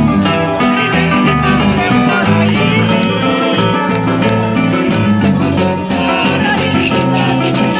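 A band playing Cape Verdean music with a steady, upbeat rhythm, between sung lines.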